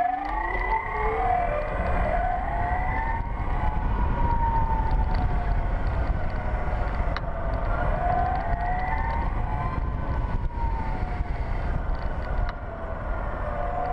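2012 Zero S electric motorcycle's motor whining as it rides, the whine rising and falling in pitch with speed, over a steady low rumble of wind and road noise.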